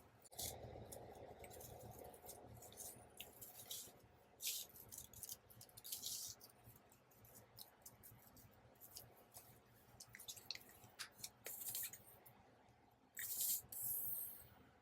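Paper being handled: faint rustles and short scrapes as cut pieces are shifted and pressed into place, with a longer rustle near the end.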